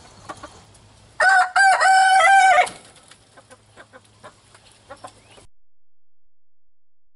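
A rooster crowing once, a loud call about a second and a half long with a short break near its start, beginning about a second in; faint clucks follow before the sound cuts off suddenly.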